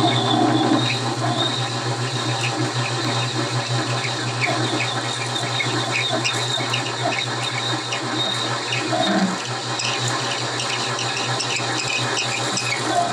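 Metal lathe drilling a large hole in spinning aluminium bar stock with a big twist drill fed from the tailstock: a steady motor hum under continuous cutting noise, with many short high chirps as long spiral chips curl off the drill.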